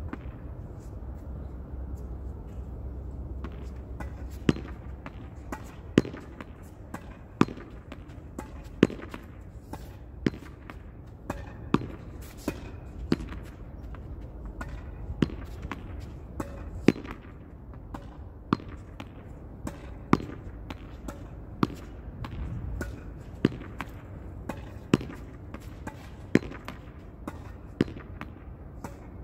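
A ball being hit against a wall over and over in a steady rally, a sharp loud strike about every one and a half seconds with lighter knocks between. The strikes start about four seconds in.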